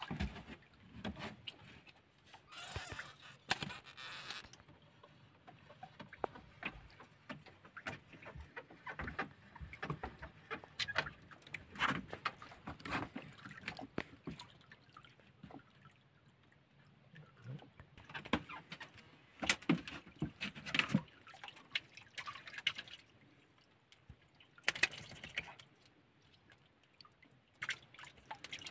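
Water lapping and sloshing against a small wooden outrigger boat, with irregular small knocks and clicks from fishing line being handled on board. A brief rushing noise comes about three seconds in and again near the end.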